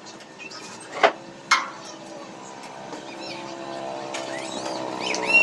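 Two sharp knocks about a second in. Then a motor vehicle's engine runs and grows steadily louder as it comes closer, with birds chirping near the end.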